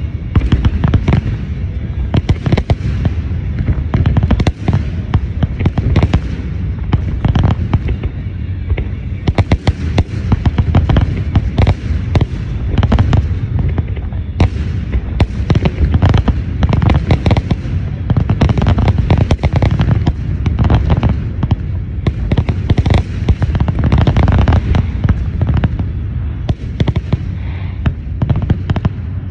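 Aerial firework shells bursting in a dense, continuous barrage of loud booms and bangs, easing off slightly near the end.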